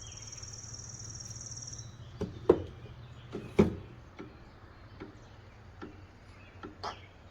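A high, fast-pulsing trill for about two seconds over a low hum, then a few sharp knocks and clicks, the loudest about three and a half seconds in.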